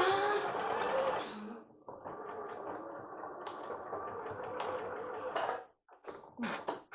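Computerized sewing machine (bernette b38) stitching lace. A short fast run is followed by a brief pause, then a steady run of about three and a half seconds, with a few clicks near the end.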